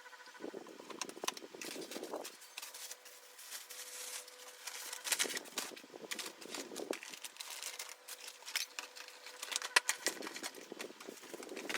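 Household items being handled and put away: rustling in three stretches, with many scattered light clicks and knocks.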